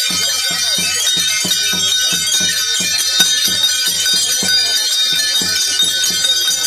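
Music with a steady drumbeat of about three strokes a second and continuous jingling of bells.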